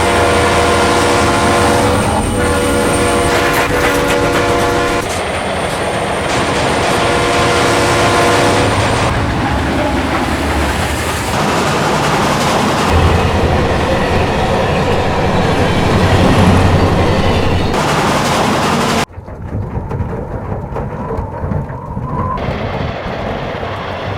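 Train sound effects: a locomotive horn chord sounds in three long blasts over the first half, over the rumble and clatter of a running train. About two-thirds of the way through, the loud rumble cuts off suddenly to a quieter rolling sound.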